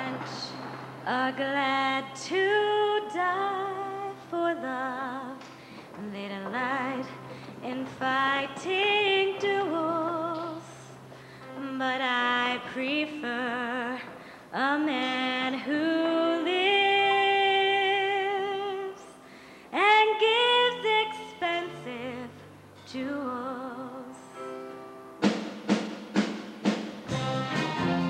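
A woman singing a solo with strong vibrato and long held notes, backed by a live band with a drum kit. Near the end, sharp drum hits come in about twice a second and the band grows louder.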